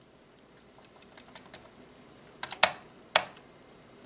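Keys on a Commodore home computer's keyboard being pressed: a few light taps, then sharper keystrokes twice near the end.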